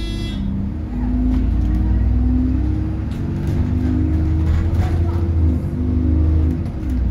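Diesel engine of a 2006 Alexander Dennis Trident 2 / Enviro 400 double-decker bus, heard from inside the lower deck as the bus drives and accelerates. The engine note rises and falls, with short dips about a second in and near the end.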